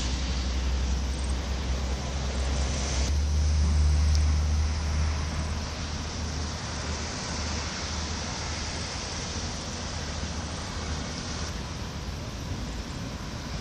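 Steady low outdoor rumble with a faint hiss over it, swelling a little about three to five seconds in.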